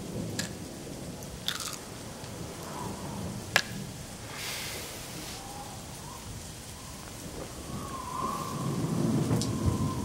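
Rain with rolling thunder that swells again near the end, and a few sharp clinks of a drinking glass handled on a bedside table.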